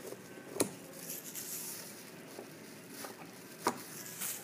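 Thin plastic shopping bag rustling softly as it is handled and opened out, with a sharp tap about half a second in and another near the end.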